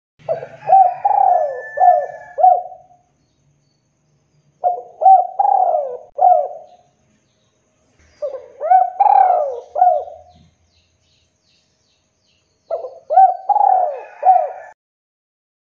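Spotted dove cooing: four phrases of four or five quick, rolling coos each, separated by pauses of about two seconds.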